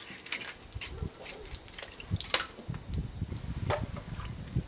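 Thin stream of tap water trickling into a stone sink of standing water while fish are handled and rinsed, with scattered small splashes and knocks. A low rumble sets in a little past halfway.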